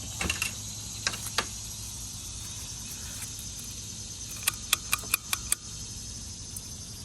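Steady outdoor insect chirring with a few sharp clicks, including a quick run of about six clicks a little past the middle.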